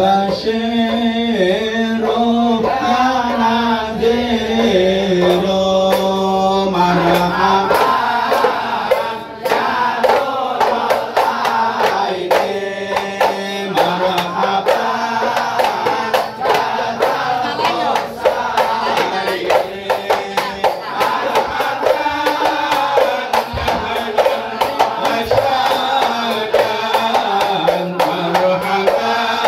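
ISHARI hadrah: a chorus of men singing sholawat to terbang frame drums in the standing mahallul qiyam section. The first few seconds are long held sung notes, then the hand-drum strokes grow dense about nine seconds in.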